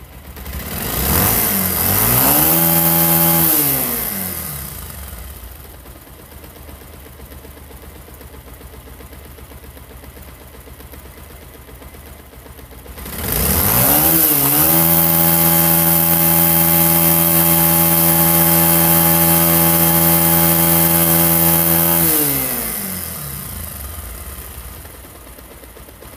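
Bajaj Pulsar's single-cylinder engine idling and being revved twice: a short rev a couple of seconds in, then a longer rev held steady for about eight seconds before dropping back to idle. The timing-chain tensioner has just been tightened to cure the engine's chain rattle.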